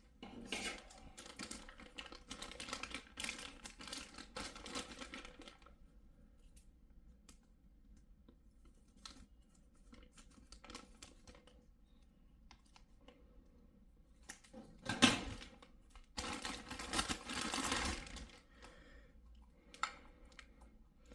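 Plastic packaging crinkling and rustling with small clicks and taps as a USB cable and its kit parts are unpacked and handled. There is a dense crackly stretch at the start, sparse clicks in the middle, a sharp louder rustle about three quarters of the way through followed by more crinkling, and a single click near the end.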